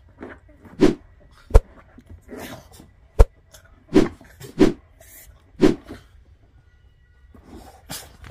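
A dog grunting in short bursts, roughly one a second, as it rolls and wriggles on its back, with two sharp knocks among them.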